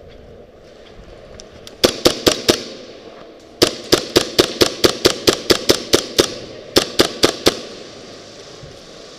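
Airsoft gun firing in three strings of quick single shots, about four a second, each a sharp pop.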